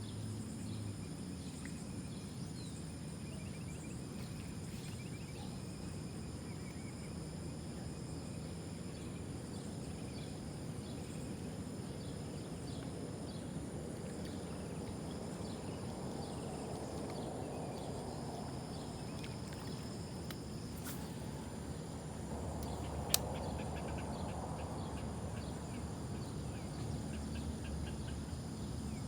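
Insects singing in steady high tones over a low, even rumble, with one sharp click about 23 seconds in.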